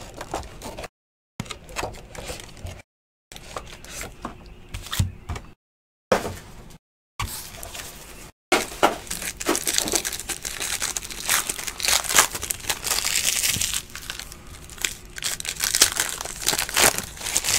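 Foil wrapper of a Panini Clear Vision basketball card pack crinkling as it is handled and torn open. The sound cuts out completely several times in the first half, then runs on as steady crackling.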